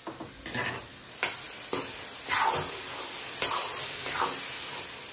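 Steel spoon scraping and stirring thick grated-carrot halwa in a metal kadhai, in strokes about once a second. The halwa is being stirred constantly at its final drying stage, with no liquid left, so that it does not catch and burn.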